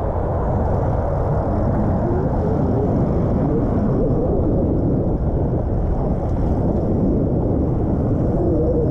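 Steady low wind rumble on the GoPro's microphone mixed with the rolling and rattle of a 2017 Specialized Stumpjumper mountain bike's tyres on a dirt singletrack.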